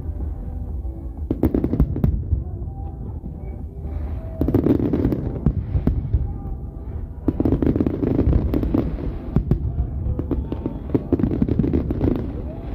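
Fireworks display: a dense run of shell bursts, bangs and crackles over a low rumble, swelling into louder volleys every three seconds or so.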